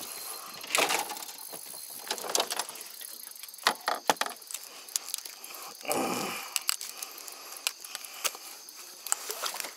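Landing net being picked up and handled on a small fishing boat: the net's metal frame and mesh rattle and knock against the gear on the deck in a series of sharp clicks and clatters, with a longer rustling scrape about six seconds in.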